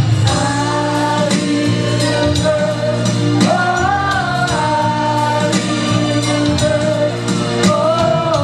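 Live soul vocals: a man and a woman singing into microphones over a band accompaniment with steady bass and drum beats.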